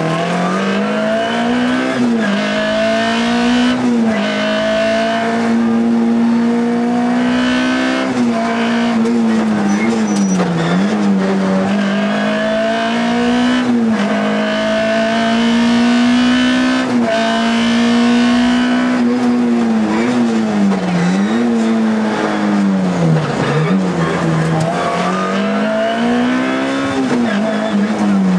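Škoda Felicia Kit Car rally engine heard from inside the cabin, driven hard at high revs: its note climbs through each gear and drops sharply at every shift or lift off the throttle, over and over.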